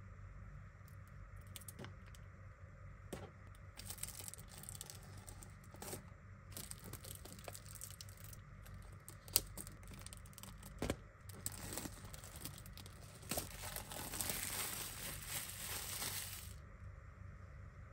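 Plastic shrink wrap being peeled off a metal steelbook Blu-ray case by gloved hands, then scrunched into a ball: crackling and crinkling with a few sharp clicks, loudest near the end as the film is crumpled.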